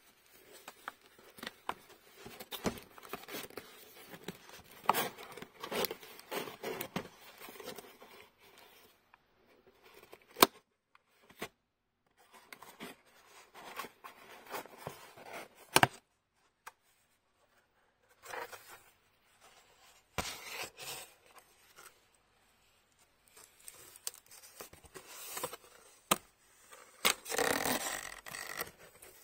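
Cardboard shipping box being opened and handled: flaps scraping and rustling, with scattered sharp clicks and a longer, louder scraping stretch near the end.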